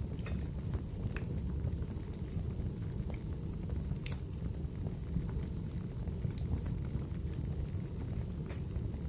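Wood fire burning: a steady low rumble of flames with scattered sharp crackles and pops, the sharpest about four seconds in.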